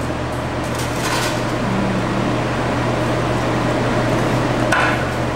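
Steady low hum and fan-like whoosh of kitchen machinery. Metal tongs lightly clatter and rustle as crispy bacon is moved onto plastic wrap, once about a second in and again near the end.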